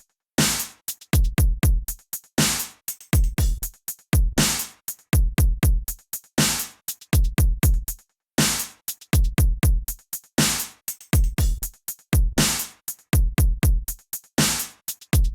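Electronic background music: a drum-machine beat with deep bass kicks and sharp hits in short phrases separated by brief silent gaps.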